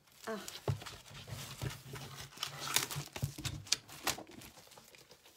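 Plastic wrapping on a pack of patterned craft paper being picked at and pulled open by hand: crinkling and rustling with many sharp little clicks.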